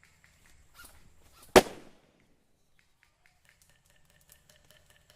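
Airsoft grenade exploding: a single loud, sharp bang about a second and a half in, trailing off over about half a second. Faint clicks and ticks follow.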